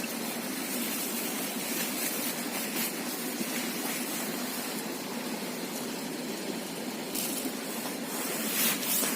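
Steady rushing of a flowing river, an even hiss of water. A brief louder rustle comes near the end.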